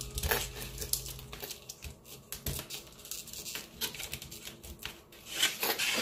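Hands handling a cardboard box and pressing sellotape down along its corners: a string of small taps, rubs and crinkles, with a louder rustle near the end.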